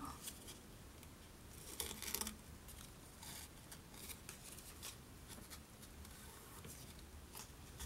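Faint rustling of paper and ribbon as a ribbon is threaded through slits in a die-cut paper label, with small scattered clicks and a brief louder rustle about two seconds in.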